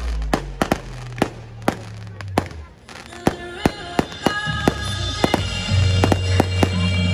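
Fireworks display: aerial shells bursting in a rapid series of sharp bangs and crackles, over music with a steady bass note. A brief lull comes about three seconds in.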